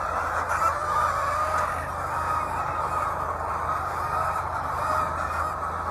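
A large flock of laying hens clucking and calling all at once, a continuous chicken-house din, over a steady low hum.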